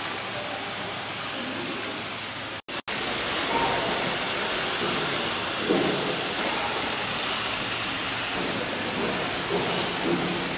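Steady hiss of room noise with faint murmur of voices, broken by a brief dropout where the sound cuts out for a moment about a quarter of the way in.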